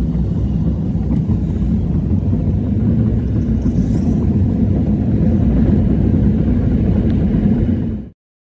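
Low, steady rumble of a moving car heard from inside the cabin, road and engine noise; it cuts off suddenly about eight seconds in.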